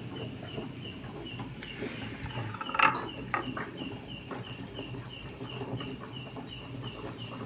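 Short high chirps repeat steadily about three times a second from a small animal in the background. There are a few light clicks and one louder knock about three seconds in.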